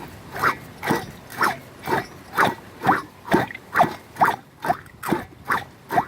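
Stihl TS420 concrete saw's single-cylinder two-stroke engine turned over by hand, giving a short puff of sound that drops in pitch with each compression stroke, about two a second. The engine turns freely, not seized, and the sound shows how much compression it has.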